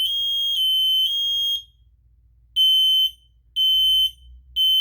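Smoke alarms sounding the temporal-three fire alarm pattern with high-pitched beeps. The beeps run almost without a break for about the first second and a half, then after a short pause come three even half-second beeps.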